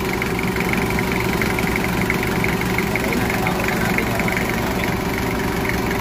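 Yanmar diesel engine in a Doosan forklift idling steadily on its test run after being installed, a continuous even engine note with a fine rapid ticking over it.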